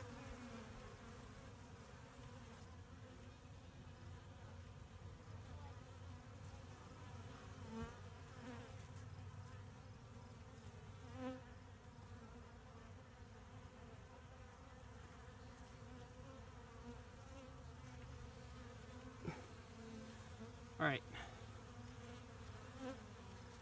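Honeybees buzzing in a steady low hum at a hive entrance under a robbing attack, the agitated sound of robber bees and defenders crowding and fighting at the opening. A few brief louder buzzes stand out, the loudest about 21 seconds in.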